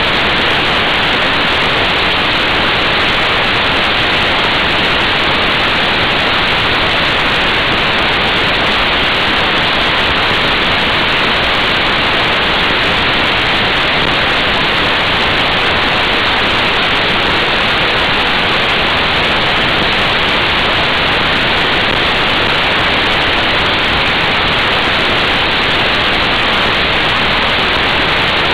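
Steady, loud rush of wind over a motorcycle-mounted action camera's microphone at motorway speed. It is an even hiss with no engine note standing out.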